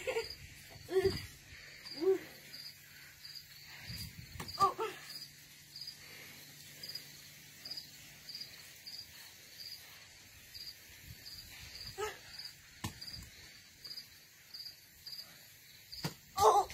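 A cricket chirping steadily, a short high chirp about twice a second, with a few brief voices and a couple of knocks here and there.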